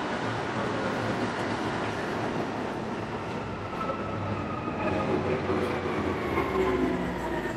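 A train passing, a steady rumble with a whine that falls slowly in pitch over the second half.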